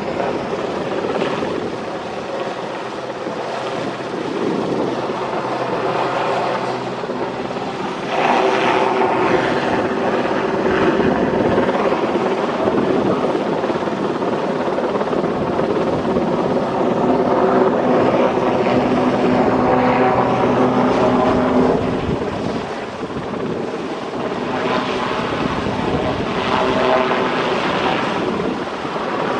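Westland Sea King helicopter flying overhead, its twin turboshaft engines and rotors running: a steady whine over the rotor noise that grows louder for a long stretch in the middle, eases, and swells again near the end.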